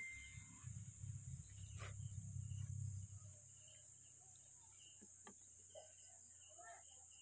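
Steady high-pitched insect drone, with a low rumble during the first three seconds and a few faint scattered ticks.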